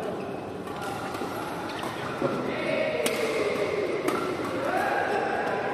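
Badminton rally: sharp cracks of rackets hitting the shuttlecock, the clearest about a second apart in the second half, with sneakers squeaking on the court floor as the players move.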